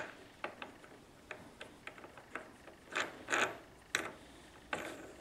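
Light metallic clicks and scrapes of a cutting disc and its flange nut being handled by hand on an angle grinder's threaded spindle, a dozen or so small clicks with a few louder scrapes past the middle.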